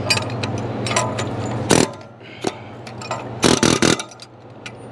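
Sharp metal clanks and clicks of hand tools as the engine's cooling fan is fitted back on: one loud clank just before two seconds in, then a quick run of four or five clanks about a second and a half later. A steady low hum runs under the first part and cuts off just before two seconds in.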